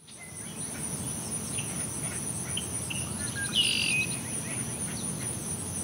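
Outdoor ambience of birds chirping over a steady, high-pitched chirring of insects, with a louder bird call about three and a half seconds in.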